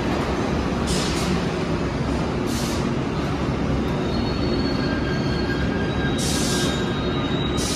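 Bombardier R62A subway train rolling along the station platform with a steady, loud rumble. A faint high wheel squeal comes in about four seconds in, and there are four short bursts of hiss.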